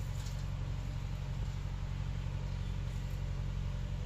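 A machine running steadily with a low, even hum, with a few faint clicks.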